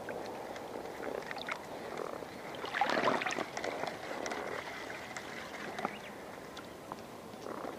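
Small waves lapping and sloshing right against a camera sitting at the water's surface, with a louder rush of water about three seconds in.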